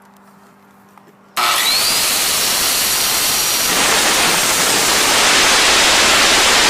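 A power saw starts about a second and a half in, with a short rising whine as the motor spins up, then runs loud and steady as it cuts through wood.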